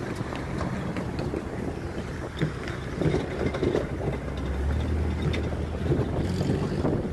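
Wind buffeting the microphone over the rumble of cars and trucks driving across the railroad crossing.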